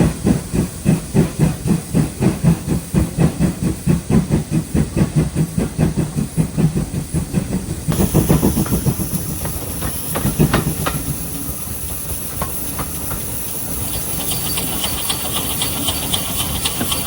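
Steam locomotive working, its exhaust chuffing in a quick, even beat. About halfway through, the beat fades and a steady hiss of steam takes over and grows stronger toward the end.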